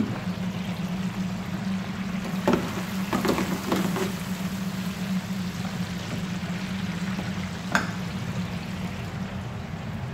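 Steady hum of commercial kitchen equipment under a continuous hiss, with deep-fryer oil sizzling and a few sharp knocks of handling about two and a half, three and a half and nearly eight seconds in.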